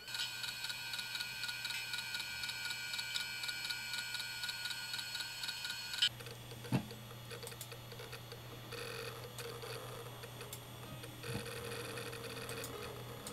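Old NEC 20 GB hard drive, powered through a USB adapter, giving a steady high whine with fast, even ticking, about three to four ticks a second, while it fails to come up. About six seconds in the sound drops to a quieter hum with a lower on-off tone and scattered ticks.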